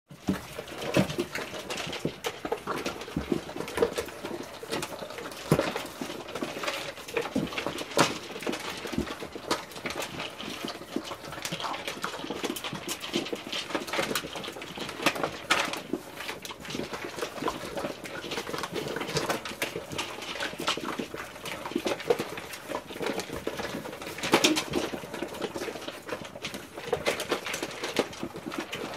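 A litter of puppies eating from plastic slow-feeder puzzle bowls: a steady, irregular clatter of kibble, teeth and muzzles against the plastic, with chewing.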